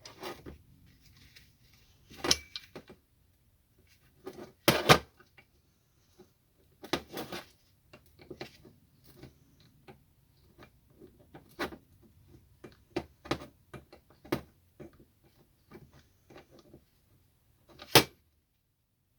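Irregular clicks, taps and knocks of metal cutting-torch parts and tools being handled and set down on a workbench, with several louder clanks scattered through.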